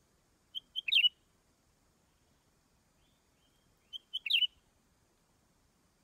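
Leafbird singing: two short phrases about three seconds apart, each a couple of quick high notes followed by a louder, rapid flourish.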